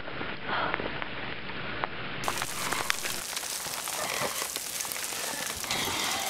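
Footsteps crunching through snow: an irregular patter of short crackling steps over a noisy background.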